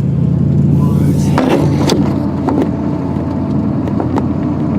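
Car engine running as the car drives on, a steady low drone that gets louder at the start, with a few sharp knocks or rattles.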